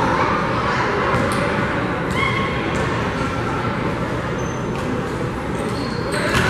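Spectators chattering in a gymnasium, a steady murmur with a few brief high squeaks; the crowd noise swells about six seconds in, as the free throw goes up.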